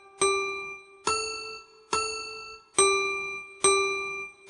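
Background music: a slow melody of single bell-like keyboard notes, five in all, each struck and left to ring and fade before the next.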